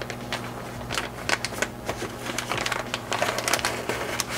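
A frosted plastic zip-lock bag being pulled open and handled, crinkling with many sharp crackles and clicks.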